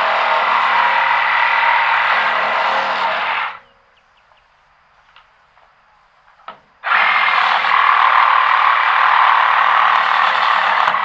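Cordless power tool running loud and steady, cutting off about three and a half seconds in, then, after a few faint clicks, starting up again abruptly about three seconds later.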